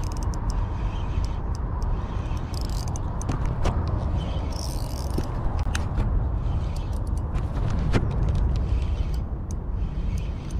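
Spinning fishing reel being cranked to retrieve line against a big hooked fish, its gears and mechanism clicking in quick, irregular ticks over a steady low rumble.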